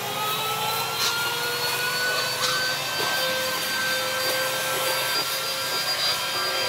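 Small cordless handheld vacuum cleaner running, its motor whine rising slightly in pitch over the first few seconds and then holding steady, with a few light taps of the nozzle on the floor.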